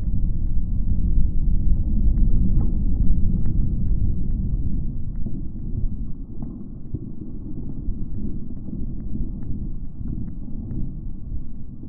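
A puffed 3S3P lithium-polymer battery pack burning in thermal runaway after deliberate overcharging, venting jets of flame: a steady low rumble with scattered sharp crackles. It is loudest a few seconds in, then eases.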